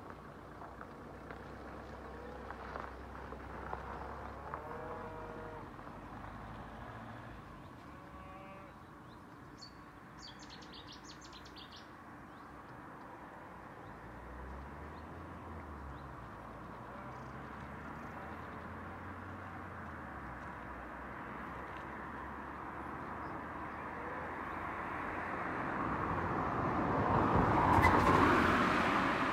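Birds chirping over steady outdoor background noise during the first half, then a vehicle approaching and passing close, swelling to its loudest about a second before the end and starting to fade.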